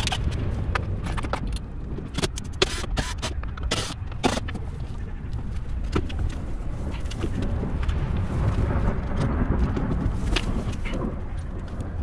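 Scattered clicks and knocks from a cordless drill and tools being handled against a van's metal rear door, most of them in the first four seconds, over a steady low rumble.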